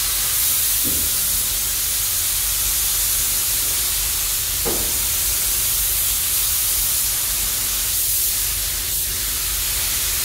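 Compressed-air paint spray guns hissing steadily while spraying paint onto a camper body, over a low steady hum.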